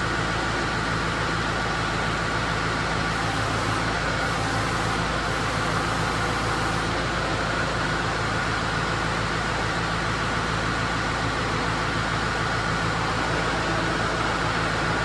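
Kubota M5-111D tractor's four-cylinder turbo diesel engine running steadily, with a steady whine over the low engine note.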